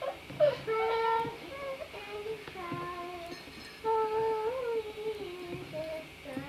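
A young girl singing a song, holding long, slightly wavering notes, with a short pause in the middle before a louder held note.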